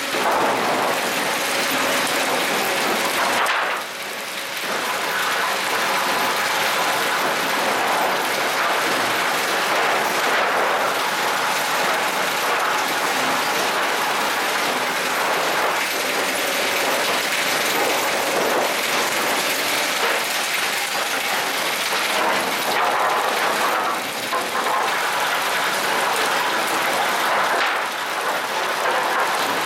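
Lumber-stacking machine's roller-chain conveyors running, a steady mechanical clatter of chains and sawn boards that eases briefly twice, about four seconds in and again near twenty-four seconds.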